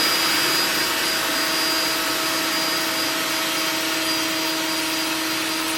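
Power drill running steadily with a diamond drill bit grinding into porcelain tile: a constant motor whine over a harsh grinding hiss, cutting off just after the end.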